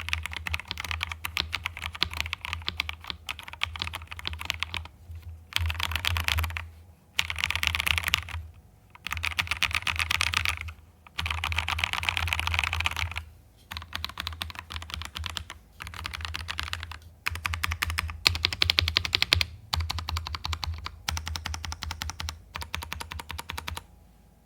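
Fantech Maxfit70 gasket-mount mechanical keyboard in stock condition, its linear Maxfit Yellow switches typed on fast: dense runs of key clacks in bursts of a second or two, with short pauses between.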